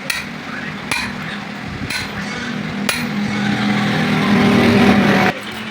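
Four sharp hammer blows on metal, about a second apart, during clutch plate repair work. A steady mechanical hum follows, growing louder and cutting off suddenly near the end.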